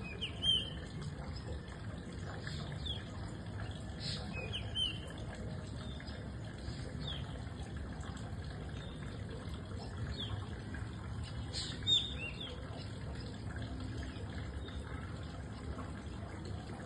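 Black drongo calling: short, sharp whistled notes that bend in pitch, repeated every few seconds, loudest about half a second in and again about twelve seconds in, over a steady low background rumble.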